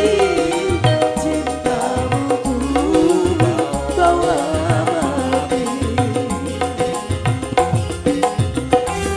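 Live campursari band music: keyboard and drums keeping a steady beat under a man and a woman singing a duet, the singing fading out about two-thirds of the way through.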